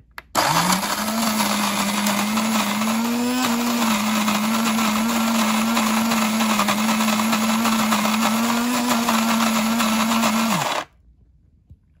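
Shardor electric conical burr grinder grinding coffee beans: the motor spins up just after the button press and runs loud and steady with a constant hum under the grinding noise. It cuts off by itself about a second before the end, the auto shut-off ending a two-cup grind.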